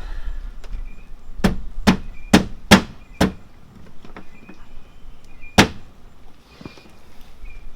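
Sharp knocks on the carbon fibre rear diffuser as it is struck to force a stubborn clip to seat: five blows in about two seconds, then one more a couple of seconds later.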